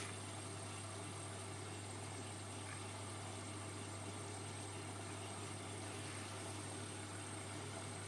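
Ariston 4.5 kg washing machine running its cotton wash cycle: a steady low hum with a faint even hiss and no changes.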